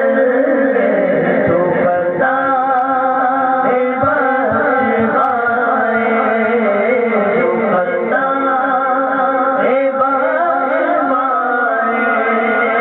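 A man singing a devotional Urdu song through a microphone and PA, in long held, wavering notes.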